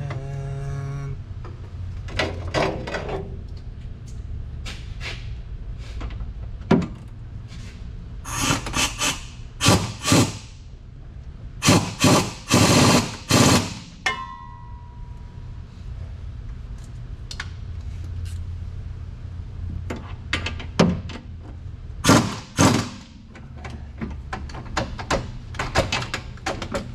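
Metal tools clanking and rattling in short bursts while a bolt is fitted by a vehicle's rear differential, over a steady low hum.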